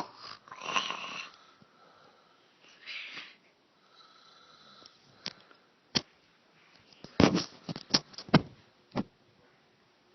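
A woman passed out drunk, snoring in her sleep: a few rough, noisy breaths in the first half, then a run of short sharp clicks and smacks in the second half.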